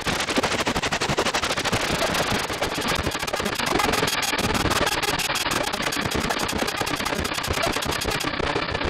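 Eurorack modular synthesizer patch, Befaco Rampage pulses run through Strymon Magneto delay, bit crushing and Dwarfcraft Great Destroyer distortion, putting out a fast, harsh stream of distorted clicks and crackles, many per second. Near the end its brightest hiss drops away as a knob is turned.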